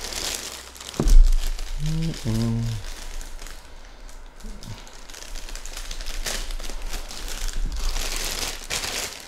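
Clear plastic bag crinkling and rustling as it is pulled off a cine lens, with a single sharp thump about a second in.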